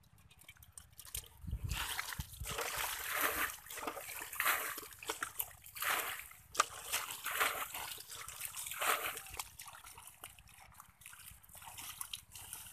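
Hands and legs splashing and sloshing through shallow muddy water in irregular bursts while groping for fish by hand, starting about a second and a half in.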